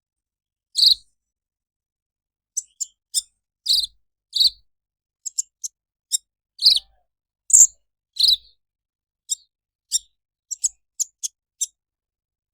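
A sunbird (the 'kolibri ninja' of Indonesian bird-keepers) calling: about twenty short, sharp, high chirps, some single and some in quick runs of two or three, at irregular intervals with silence between.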